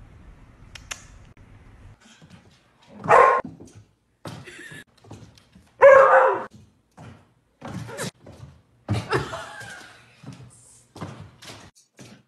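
A dog barking in loud single barks, about three and six seconds in, with a weaker one a little after nine seconds. Short knocks and thumps on a hard floor sound between the barks.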